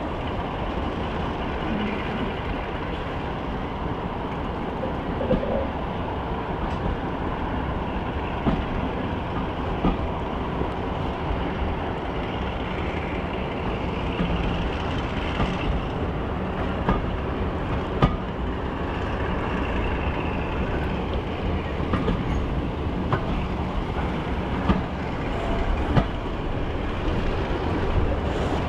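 The twin Maybach MD650 diesel engines of Class 42 'Warship' locomotive D821 'Greyhound' running steadily, with scattered sharp clicks from the train.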